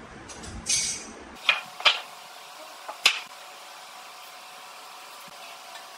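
Rough wooden planks being shifted by hand on a concrete floor: a short scrape, then three sharp wooden knocks as boards are knocked together and set down.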